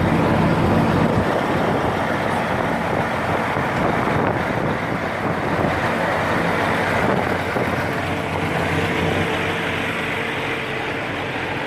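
Diesel engine of a Case IH Steiger 500 STX tractor running steadily under way.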